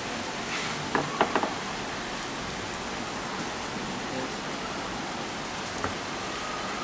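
Steady hiss throughout, with a quick run of sharp metallic clicks about a second in and a single click near the end, from the comb sorter's metal combs being handled.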